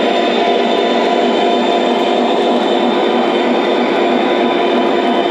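Lionel model covered hopper cars rolling past on the track: a steady rumble and clatter of small metal wheels on the rails.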